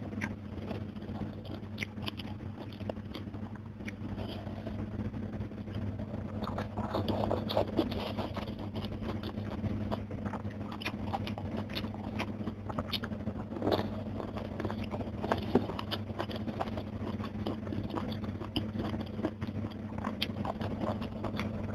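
Close-up eating sounds: wet chewing and crunching of crisp fried fish and raw vegetables such as water spinach stalks, with many small mouth and finger clicks, over a steady low hum.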